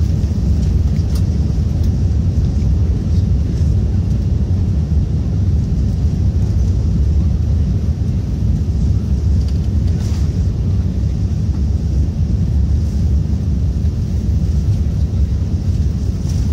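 Jet airliner accelerating down the runway on its takeoff roll, heard inside the passenger cabin: engines at takeoff power and the wheels rumbling on the runway, a loud, steady low rumble.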